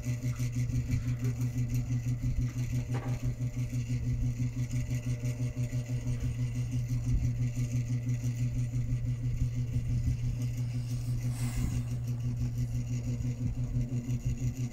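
A steady low mechanical hum with a fast flutter, unchanging throughout, with a brief faint hiss about eleven seconds in.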